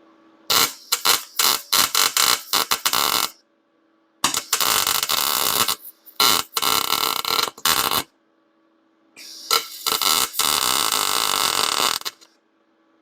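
Wire-feed welder arc crackling as it welds thin steel bed-frame tubing, in four runs: first a stuttering string of short bursts, then three longer steady beads with brief pauses between, the last the longest.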